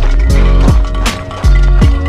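Background music with deep sustained bass notes and a steady drum beat, about two to three hits a second.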